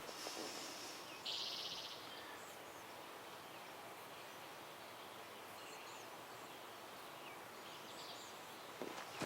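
Faint outdoor background: a steady low hiss with a few faint, high bird chirps and a short buzzy trill about a second in.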